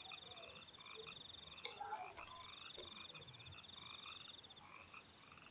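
Faint background chorus of frogs croaking: several pulsed, trilling calls at different pitches overlap and repeat throughout.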